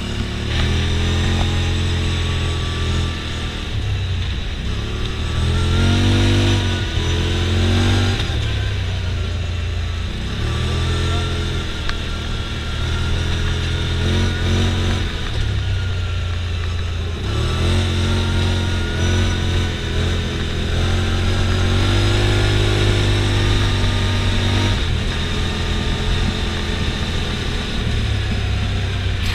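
Side-by-side UTV engine heard from inside the open cab under hard driving, its pitch rising and falling again and again as it accelerates and eases off, with steady wind and road noise.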